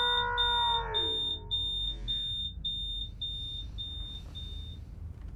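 Smoke alarm beeping about twice a second, fading out near the end, under the tail of a man's long held scream of 'dead' that drops in pitch and breaks off about a second in.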